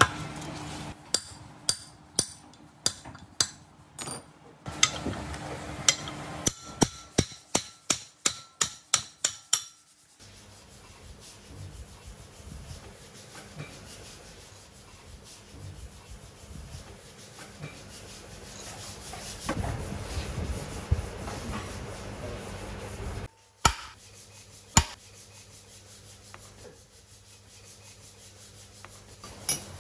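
Hammer blows on a metal punch held against the steel flywheel hub nut of a Kubota RT140 single-cylinder diesel, to work the nut loose. The blows come as a rapid series of sharp metallic strikes over the first ten seconds. Then they stop, giving way to rubbing and handling on the flywheel with two more sharp knocks.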